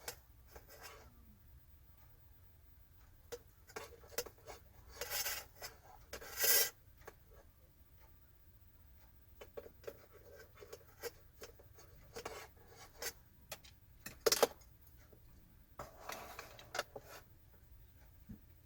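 Kitchen utensils and dishes being handled: scattered light clicks and knocks with a few short scraping or rubbing sounds, the loudest a sharp click about fourteen seconds in.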